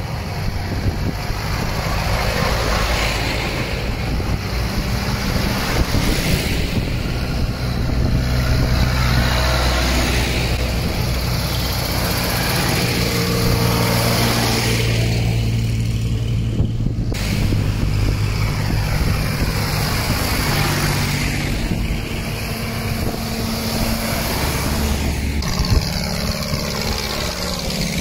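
Diesel engines of large farm tractors running as a procession drives past one after another, with tyre noise on the road and engine pitch rising and falling as each passes. The footage runs at double speed, so the engines sound faster and higher than in life.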